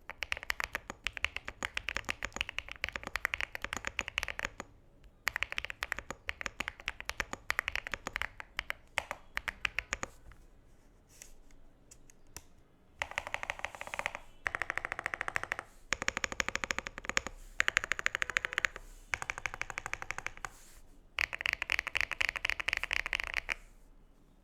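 Cidoo ABM066 mechanical keyboard with lubed MMD Princess switches and Yongqiu Kaiju PBT keycaps being typed on fast, in bursts of rapid keystrokes. There are short pauses between the bursts and a softer, sparser stretch partway through.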